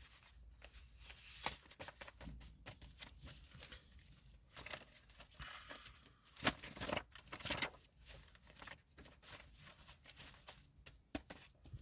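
Faint, irregular clicks and rustling of small handling noises, with a few louder ticks scattered through.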